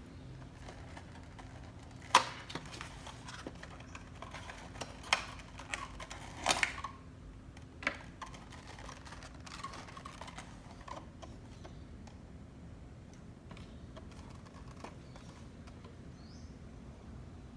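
Scattered small clicks and taps of small decor items and packaging being handled and set down, the sharpest about two seconds in and a short cluster between five and eight seconds.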